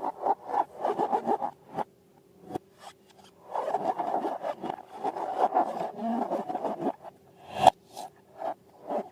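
Slime and balloon material being worked by hand. First comes a run of quick rubbing strokes, then a few seconds of continuous scraping, and a sharp click near the end.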